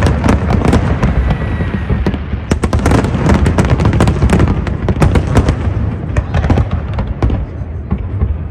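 Fireworks display going off: a dense run of sharp bangs and crackles, several a second, over a continuous low rumble of booms.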